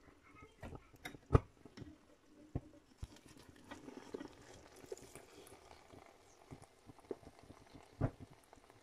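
Faint crackling of cheese-topped fries cooking in a pan, with scattered light clicks and knocks of a utensil against the pan; the sharpest knock comes about a second and a half in and another near the end.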